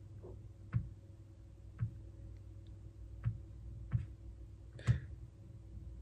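Five light knocks or taps at uneven intervals, the last the loudest, over a steady faint hum.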